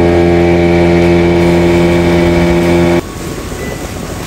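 Motorboat engine running at a steady speed under way, with water rushing past the hull. It cuts off abruptly about three seconds in, giving way to a quieter background.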